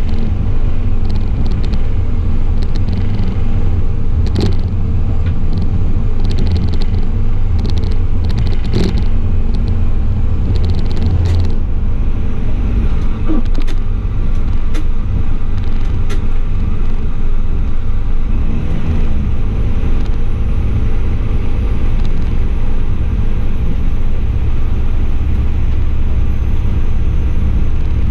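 Class 840 RegioSpider diesel railcar under way: a steady, loud low rumble of engine and running gear. Sharp clicks and knocks from the running gear come through in the first dozen seconds, fewer after that.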